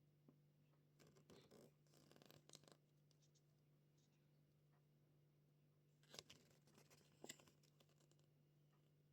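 Faint rustling, scratching and small clicks of hands handling items during an earphone unboxing, in two short spells, over a steady low electrical hum.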